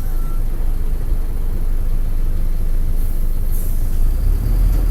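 Mercedes-Benz OF-1722M bus's OM-924 LA diesel engine running, heard from aboard, a steady low rumble. A short hiss of air comes about three and a half seconds in, and the rumble grows heavier near the end.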